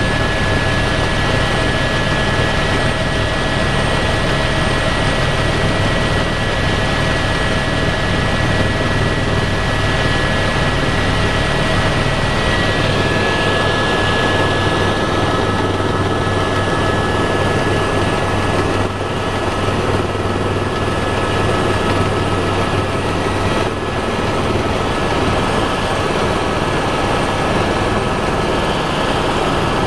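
Helicopter cabin noise in flight: the rotor and turbine engine make a loud, steady drone with a low hum under a few steady high whines that shift about halfway through.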